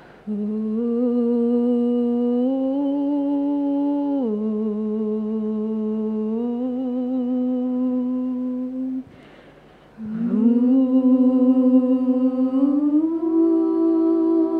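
Women's voices humming a slow a cappella nasyid melody in long held notes that step up and down in pitch. The melody breaks off briefly about nine seconds in and comes back louder.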